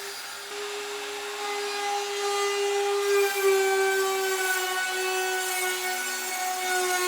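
An electric woodworking power tool running at a steady high whine while cutting wood. Its pitch and loudness dip slightly now and then as it takes the cut.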